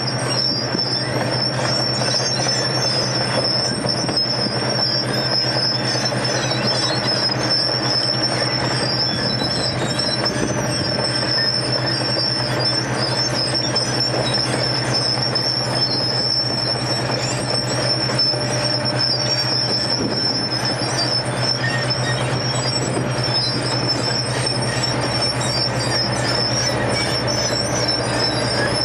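Wirtgen W250 cold milling machine running steadily as it moves slowly on its crawler tracks, its heavy engine sound joined by a constant high-pitched squeal.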